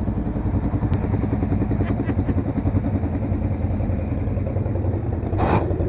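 Off-road vehicle engine running steadily, with a short burst of noise near the end.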